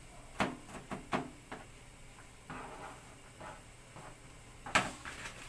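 Cleaver chopping shallots on a cutting board: a quick run of sharp knocks in the first second and a half, softer sounds in the middle, and one louder chop near the end.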